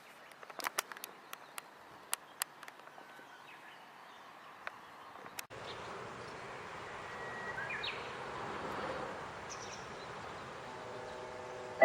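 Faint outdoor ambience: scattered sharp clicks and a few short bird chirps, with a steady hiss that sets in abruptly about halfway through.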